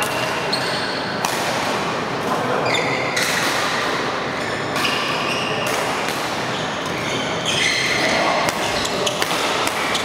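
A badminton doubles rally: racket strikes on the shuttlecock come about once a second or so, and shoes squeak on the court mats as the players move.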